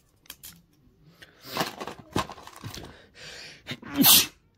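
A person sneezing while ill: a breathy in-breath, then one loud, sharp sneeze about four seconds in. Before it come a few scattered knocks and rustles.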